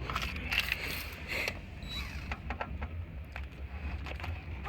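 Scattered clicks and light knocks of a car radio head unit and hand tools being handled, over a steady low hum.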